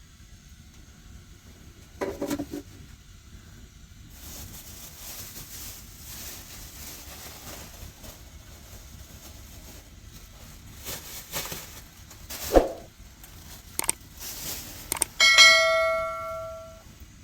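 Knocks and a hissing rustle of things being handled, then a metal object struck about two seconds before the end, ringing clearly and fading out over a second or two.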